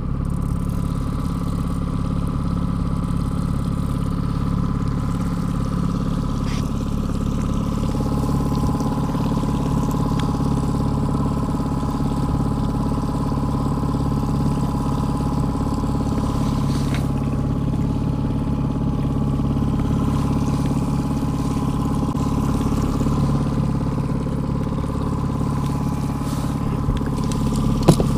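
Boat's outboard motor running steadily at trolling speed, an even hum with no change in pitch. A sharp knock sounds just before the end.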